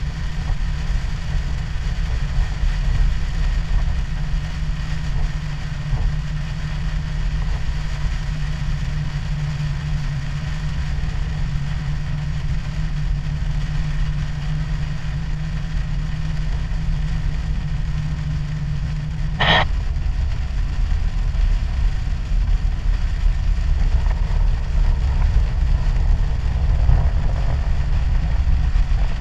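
Chevrolet Blazer driving on a wet road, heard from inside the cab: a steady engine and tyre rumble with a low hum. About two-thirds of the way through there is a single sharp click, and the hum drops away after it.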